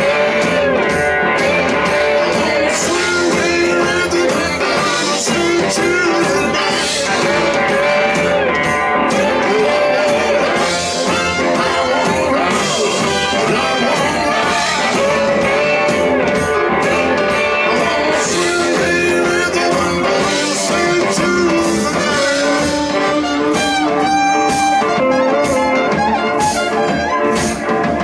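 Live blues-rock band playing a song with a singing voice, guitar and horns over a steady beat.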